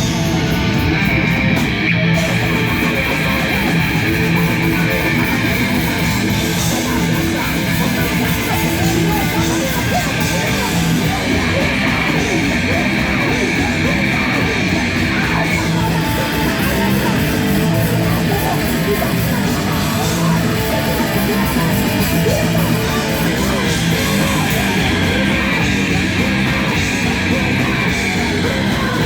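Live rock band playing loud heavy rock, led by electric guitar.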